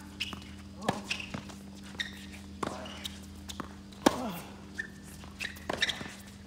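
Tennis rally on a hard court: racket strikes on the ball and ball bounces, sharp pops about half a second to a second apart, the loudest about four seconds in.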